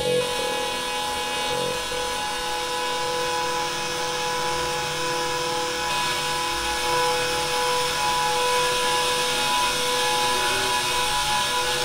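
A steady whirring drone of edited found sound, EQ'd and speed-changed, with two held pitches running through it, one higher and one lower, and no separate events.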